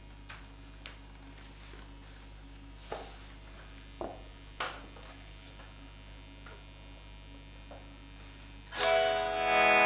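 Steady hum from a Fender Blues Jr guitar amp, with a few faint clicks and taps. Near the end, a Stratocaster with Lollar '64 pickups strikes a loud clean electric guitar chord that rings on.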